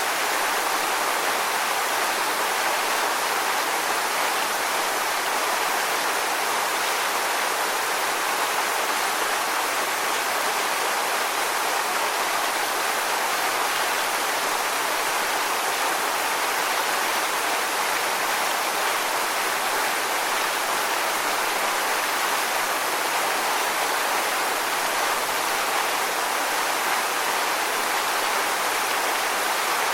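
Waterfall: a steady, even rush of falling water that doesn't change.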